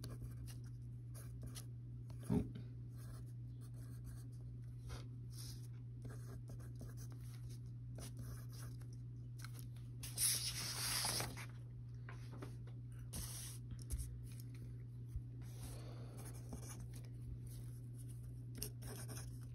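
Handwriting on a sheet of paper: faint, short scratching strokes of a pencil tip, over a steady low hum. A single knock comes a couple of seconds in, and a louder rustle about ten seconds in.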